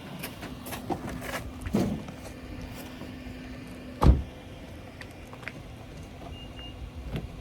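A few light knocks and clatters, then one heavy thump about four seconds in, over a steady low hum.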